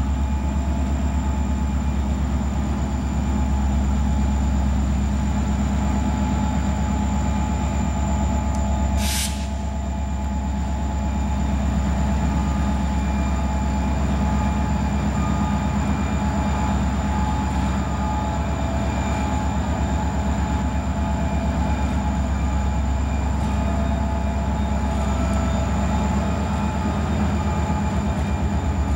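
Two EMD Geep (GP-series) diesel locomotives running as they approach at the head of a freight train: a low, pulsing engine rumble with steady high whines over it. A short hiss comes about nine seconds in.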